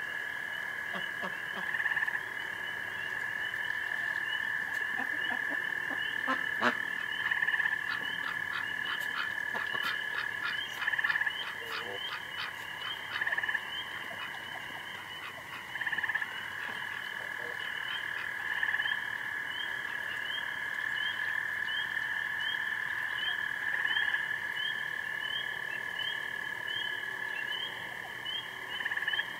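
Night chorus of frogs calling from a swamp: a steady, continuous calling band, with short rising peeps repeating about once a second. About a third of the way in, a run of rapid pulsed calls comes in for a few seconds.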